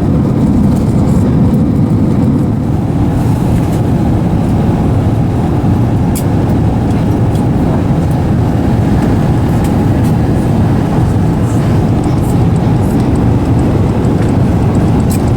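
Steady low roar of airliner cabin noise inside an Airbus A380 in flight, from engines and airflow, with a few faint clicks.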